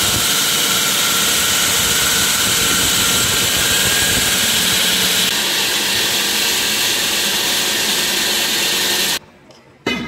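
Large concrete floor saw cutting through a wet reinforced concrete slab with its water-cooled circular blade: a loud, steady grinding whine with strong hiss that cuts off suddenly about nine seconds in.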